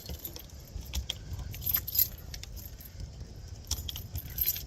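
A bunch of keys jangling and clicking as a motorhome's gas locker is shut and locked, with a steady low rumble of wind on the microphone.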